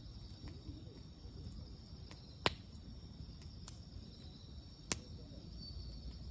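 Campfire wood crackling, with a few sharp isolated pops, the loudest about two and a half seconds in and again near five seconds, over a steady high insect chorus.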